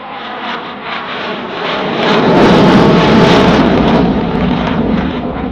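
Eurofighter Typhoon's twin EJ200 turbofans in afterburner as the jet passes: a loud roar that builds, peaks about two to four seconds in and then fades, with a ragged crackle through it.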